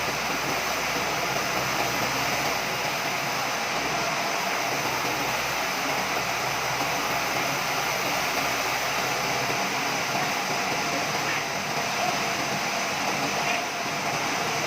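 Sawmill machinery running steadily, an even, unbroken machine noise with a faint steady tone.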